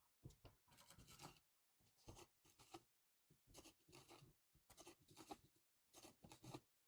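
Faint handling noises: irregular scraping and small clicks of metal parts as the polishing wheel is screwed onto the sanding machine's threaded shaft.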